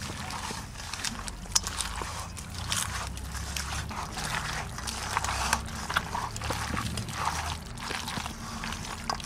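Wet squelching and squishing of hands kneading raw chicken pieces with spice paste, onion and mustard oil in a steel bowl, in irregular squeezes.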